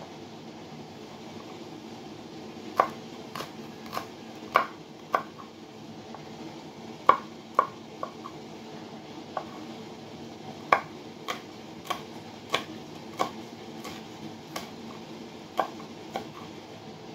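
Kitchen knife slicing chili peppers on a wooden cutting board: about twenty irregular sharp taps of the blade on the board, starting a few seconds in and stopping near the end, over a steady low hum.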